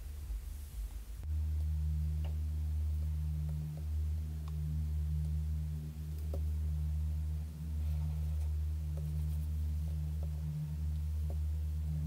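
A steady low hum sets in about a second in and carries on, with a few faint ticks of a stylus pen tapping and stroking on the glass of a Wacom Cintiq Pro 24 pen display.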